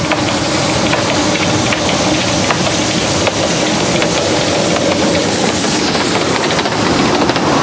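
Narrow-gauge steam locomotive running past close by with its train of coaches: a loud, steady hiss of steam with a running clatter of clicks from the wheels and coaches.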